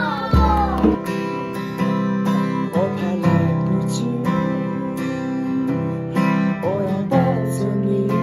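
Steel-string acoustic guitar strummed in a steady rhythm while a man sings a melody over it.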